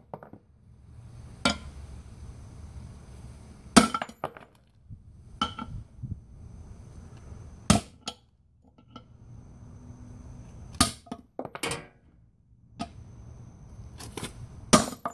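Big hammer striking a brass drift set on a wheel stud, driving the pressed-in stud out of a GM 14-bolt full-floater hub and brake drum. About eight sharp metallic blows, one to three seconds apart, several with a short high ring after them.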